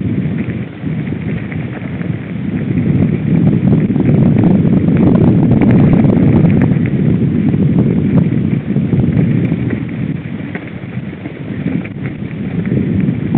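Wind buffeting the microphone over the rattle and clatter of a downhill mountain bike rolling fast over a rough dirt trail, with many small knocks from the ground. It gets louder about three seconds in and eases a little near the end.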